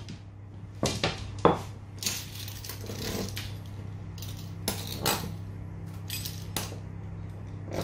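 Scattered knocks and clatters of kitchen utensils on a wooden countertop, among them a wooden rolling pin being set down while dough is handled, about ten irregular hits over a steady low hum.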